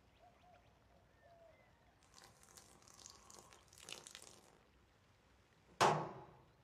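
Faint bird chirps, then a few seconds of rustling movement, and near the end one sharp thud, the loudest sound, that dies away quickly.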